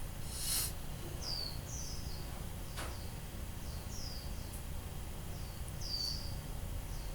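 A small bird chirping repeatedly, short high chirps that fall in pitch, about one a second, over a steady low hum.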